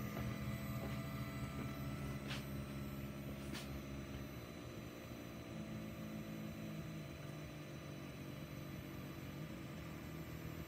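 Sculpfun S9 diode laser cutter cutting balsa: its stepper motors hum as the head moves, the tones shifting in pitch a few times, over the steady drone of a small fume extractor fan.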